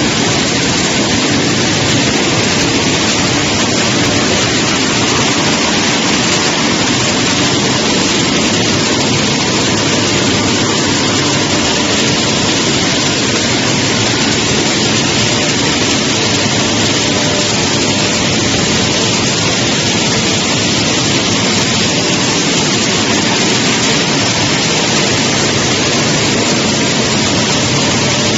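Vertical vibrating sieve screen running, a loud, steady noise with faint even hum tones beneath it.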